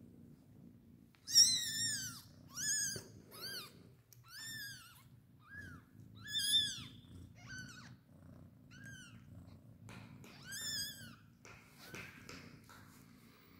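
Newborn kittens mewing while they nurse: about ten short, high-pitched cries, each rising and then falling in pitch, the loudest about a second and a half in. Under them runs the mother cat's low, steady purr.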